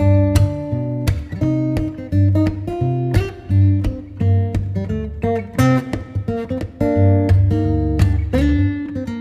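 Background music led by a plucked and strummed acoustic guitar over a steady bass line.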